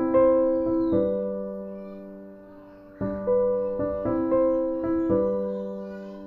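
Background music: slow keyboard chords struck and left to fade, with a lull of about two seconds in the middle.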